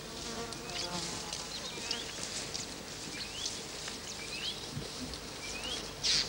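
Outdoor bush ambience of buzzing insects, with a short rising chirp repeating about once a second. A brief noisy burst comes near the end.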